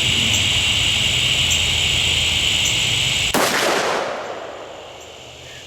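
A steady, high-pitched insect chorus, then a single shot from a Magnum Research Desert Eagle L6 .50 AE pistol a little over three seconds in, echoing and fading over about a second and a half.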